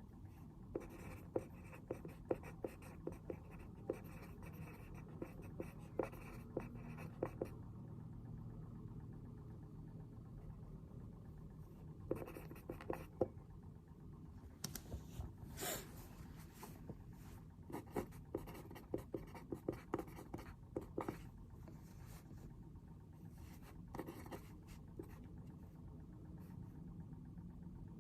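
Writing by hand on paper: quick scratchy pen strokes in spells of several seconds with short pauses between, over a low steady room hum.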